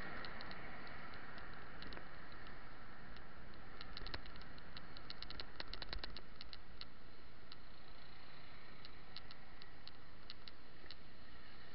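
Bicycle in motion: a steady rush of road and wind noise with irregular light ticks and clicks from the bike, coming in quick clusters at times and thinning out to a few a second at others.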